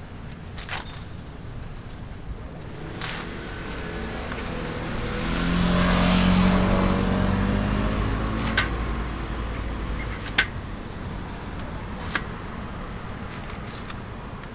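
A motor vehicle passes close by on the street, its engine hum building over a few seconds and then fading away. Sharp snaps come a handful of times as the fibrous husk of a green coconut is torn off by hand.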